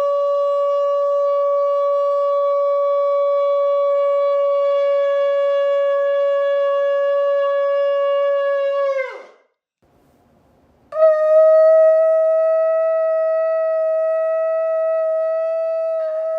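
Shofar blown in one long held note that sags in pitch as it cuts off about nine seconds in; after a second and a half of near silence, a shofar sounds another long held note, slightly higher in pitch.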